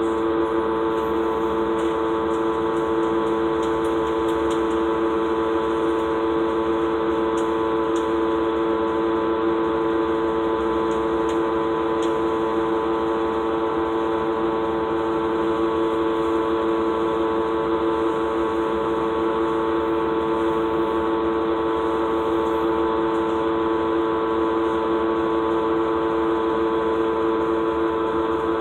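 Cummins ISL diesel engine of a 2007 Gillig Low Floor transit bus, heard from inside the passenger cabin: a steady, unchanging tonal drone that holds one pitch throughout. It is the engine's funky sound, the sign of a fault that needed repair.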